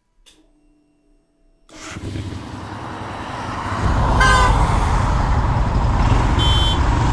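City traffic sound fades in after a second and a half of near silence. The low idle rumble of Royal Enfield Himalayan single-cylinder motorcycles grows strong about four seconds in, and two short high-pitched horn toots come near the end.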